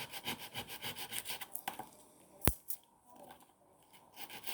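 Stainless steel broadhead blade rubbed on wet-and-dry sandpaper in quick, even strokes, about four a second. The strokes stop a little under two seconds in, a single sharp click follows, and the rubbing starts again near the end.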